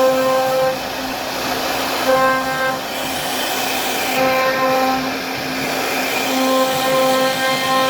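CNC router carving a wood panel: a steady spindle whine over cutting noise, with a higher whine that swells in and out about every two seconds as the machine moves through the cut.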